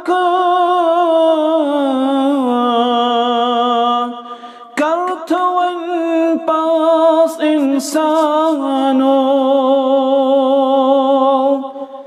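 A man singing a nasheed without accompaniment, holding long notes with vibrato, in two long phrases with a breath about four seconds in.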